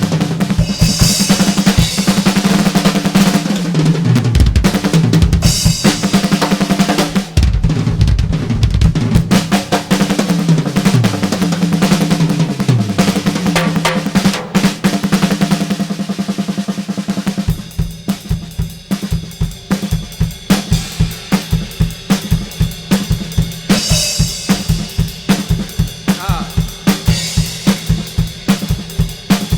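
Drum kit played fast, with bass drum, snare, rolls and cymbals. In the first half, low pitches slide downward again and again under the drumming; from about halfway it turns to a run of rapid, even strokes.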